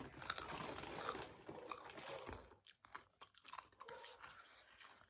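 Crunchy chips being bitten and chewed close to the microphone, the crunching dense at first and thinning to scattered crunches in the second half.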